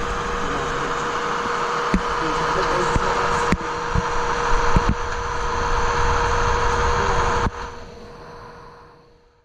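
Model trains running on an exhibition layout: a steady hum with a constant tone and track noise, broken by a few sharp clicks. About three-quarters of the way through it drops suddenly, then fades away to silence.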